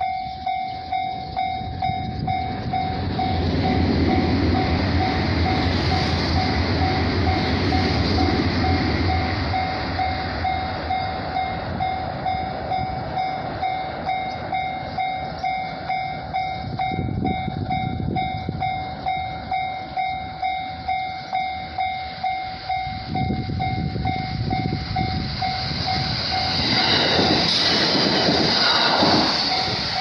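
Japanese level-crossing alarm ringing its electronic bell steadily, about two strokes a second. A low rumble swells and fades between about 4 and 9 seconds in. Near the end a Shinano Railway SR1 series electric train passes, a rising rush of wheel and motor noise that nearly covers the bell.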